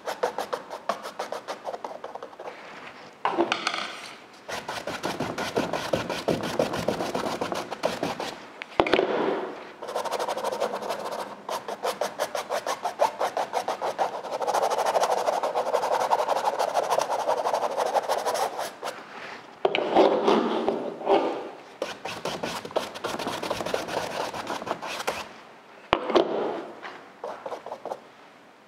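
A paintbrush scrubbing back and forth in quick short strokes on a canvas, blending wet acrylic paint: a rapid scratchy rubbing that comes in several runs with short pauses between.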